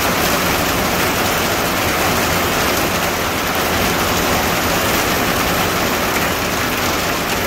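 Heavy rain falling on a greenhouse's corrugated roof and the ground outside: a steady, dense hiss, loud enough to drown out talk.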